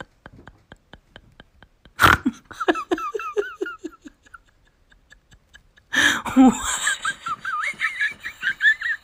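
A person bursting out laughing at the dog, twice: a sudden burst of laughter about two seconds in with a run of falling "ha-ha" pulses, then a second, louder outburst about six seconds in that turns into high-pitched giggling. Before the first laugh there is only a faint regular clicking, about three times a second.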